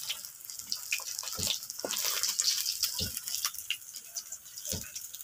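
Hot oil sizzling and crackling in a metal frying pan as crisp-fried fish pieces are lifted out with a metal spatula, with a few dull knocks of the spatula against the pan.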